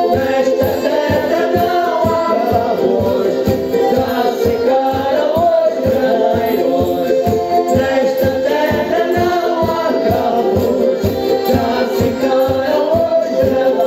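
Folk music with a group singing together over a steady, quick drum beat.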